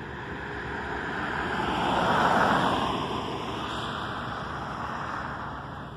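A car passing along the road, its noise swelling to its loudest a little over two seconds in, then fading as it goes by.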